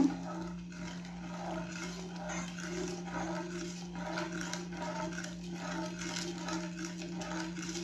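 Plastic spoon stirring sugar and water in a non-stick saucepan, with irregular scraping and light knocks against the pan, over a steady low hum.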